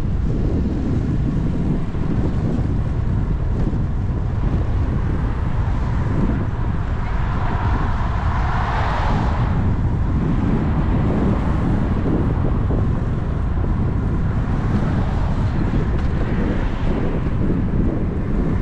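Wind buffeting the camera microphone on a moving bicycle, a steady low rumble. About halfway through, a vehicle passes close by, swelling and fading.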